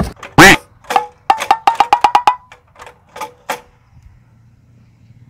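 A quick run of about a dozen sharp percussive knocks, some with a ringing pitched tone, the loudest about half a second in, stopping after about three and a half seconds.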